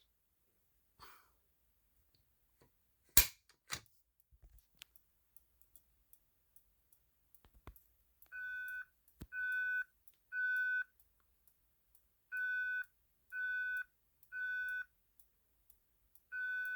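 Fire alarm speaker strobe, set to a loud volume tap, sounding a steady electronic tone in the temporal-3 evacuation pattern: three beeps about a second apart, a pause, then three more. The tone starts about eight seconds in, after a few sharp clicks, the loudest about three seconds in.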